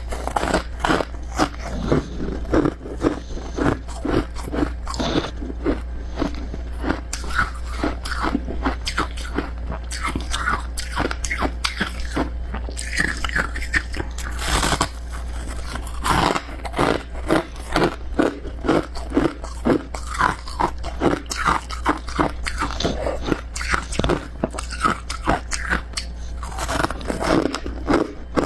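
Close-miked biting and chewing of powdery freezer frost, with dense, rapid crunches and a short break about halfway through.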